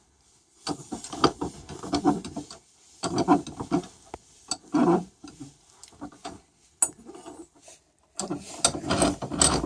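Bursts of metal scraping, clinking and rubbing as a soldered aluminium test piece is handled and reset in a steel bench vise, in four short spells with quiet pauses between.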